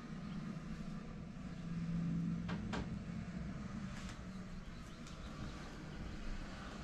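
A few sharp cracks, two in quick succession about two and a half seconds in and another about four seconds in, over a low steady background hum: joints in the back popping under the weight of a back-walking massage.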